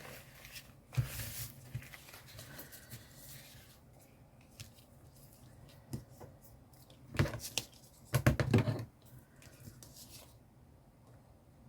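Paper and craft supplies being handled on a work table: rustling and small clicks, with a louder flurry of quick rustling strokes about seven to nine seconds in.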